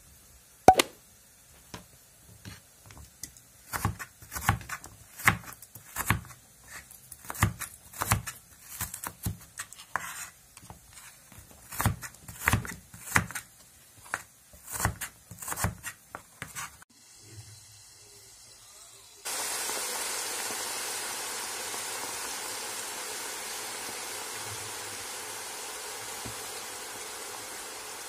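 Crinkle-cut knife chopping raw potato into wavy sticks on a wooden cutting board: a string of irregular knocks and cuts. After a short pause, a steady sizzle starts suddenly as potato sticks deep-fry in hot oil, slowly growing quieter.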